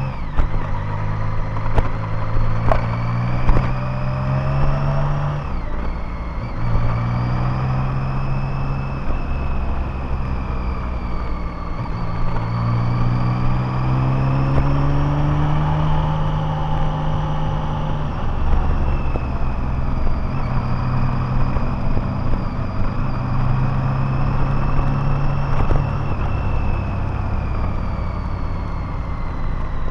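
Motorcycle engine running under way, its note rising and dropping several times as the throttle and gears change, with a faint high whine above it.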